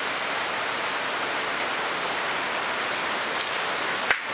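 Steady rushing of running water, with one sharp click near the end.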